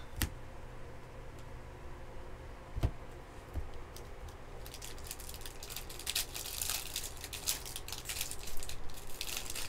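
A couple of soft knocks as cards are set down on the table, then, from about four and a half seconds in, a foil trading-card pack wrapper crinkling and tearing as it is opened.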